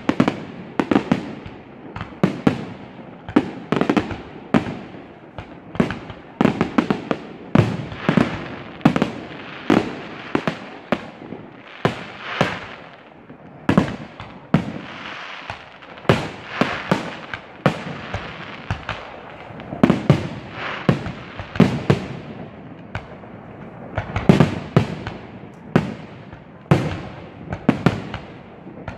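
Aerial firework shells bursting in quick, uneven succession: a steady barrage of sharp bangs, often one or two a second, each ringing out briefly.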